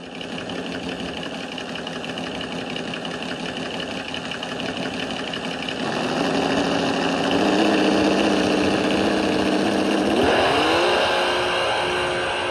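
An engine running steadily. It grows louder about six seconds in, then revs up a little after ten seconds and holds at a higher pitch.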